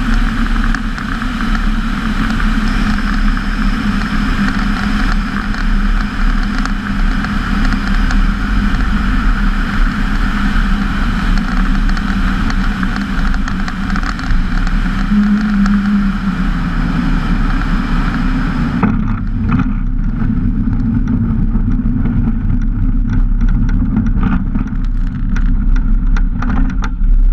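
Storch HS microlight's engine and propeller running steadily at low power on approach and landing, with a constant drone. About two-thirds of the way through, after touchdown, irregular knocks and rattles from the wheels rolling over the grass strip join it.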